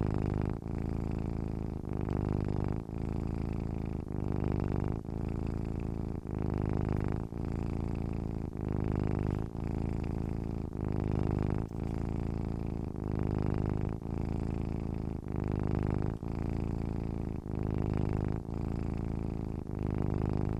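Domestic cat purring steadily, a low rumble that swells and dips with each breath about once a second.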